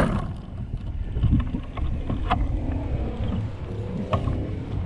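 Sharp snap of a crossbow being shot at the very start, then low rumbling handling and wind noise on the microphone with two short sharp clicks.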